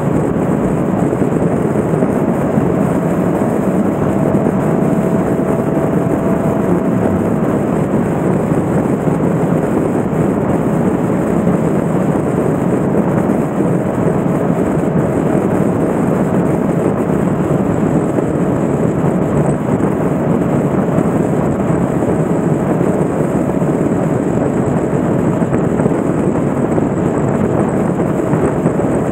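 Motorcycle ride at steady speed: a constant loud rush of wind and road noise on the motorcycle-mounted microphone, with the engine running underneath.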